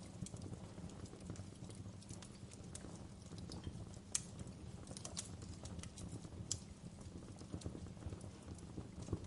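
Wood fire burning in a fireplace: a steady low rumble of flames with irregular sharp crackles and pops from the burning logs, two louder pops about four and six and a half seconds in.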